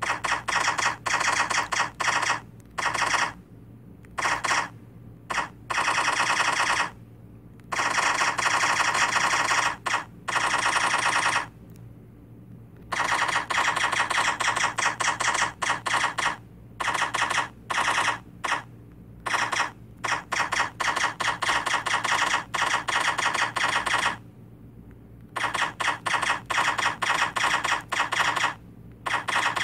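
Phone keyboard app's key-press sound effects: rapid runs of clicks as someone types quickly on a smartphone, stopping and starting in bursts with several short pauses.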